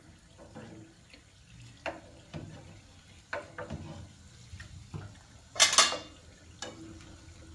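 A slotted metal skimmer knocking and scraping against a frying pan while it lifts fried pastries out of the oil. The knocks are scattered, with a louder clatter about five and a half seconds in.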